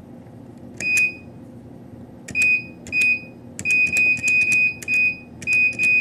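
Camden CM-120 keypad beeping as its keys are pressed. Each press gives a click and a short high beep, about nine at an uneven pace: one about a second in, then a quicker run. These are the keypad's key-press beeps while a code is entered in programming mode.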